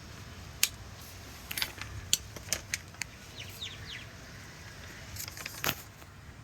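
Scattered sharp snips and snaps of flower stems being cut by hand in a garden, about a dozen irregular clicks with a few short high chirps in the middle.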